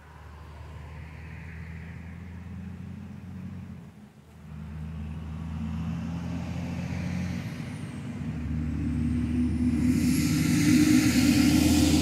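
A motor vehicle's engine hum that builds over several seconds, dips briefly about four seconds in, is loudest near the end, then begins to fade.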